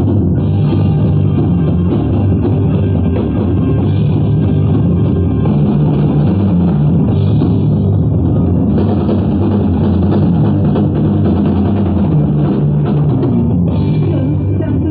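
Live rock band playing loud, with electric guitar and a drum kit going throughout.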